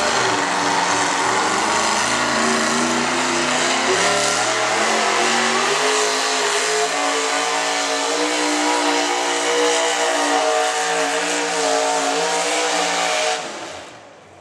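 V8 engine of a hot rod pulling tractor running at high revs under full load as it drags the weight sled. The pitch climbs in steps over the first few seconds, then holds high and steady. Near the end the engine cuts back and the sound drops away suddenly.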